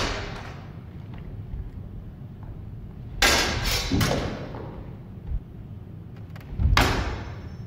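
Steel longsword blades clashing in sparring: three quick clashes a little over three seconds in, then another strike near the end that leaves a faint metallic ring.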